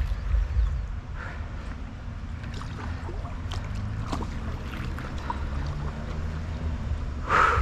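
Water trickling and lapping around a kayak, with small splashes and a steady low rumble underneath. A short, louder rush of noise comes near the end.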